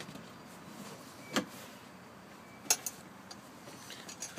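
Headrests being pulled out of a rock and roll bed seat: a few short, sharp clicks and knocks from the headrest posts coming out of their guides, one about a second and a half in and two close together near three seconds, over a quiet background.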